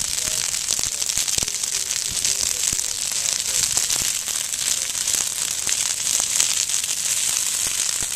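Prescribed-burn fire in brush and juniper, crackling with a dense, irregular stream of sharp pops over a steady hiss.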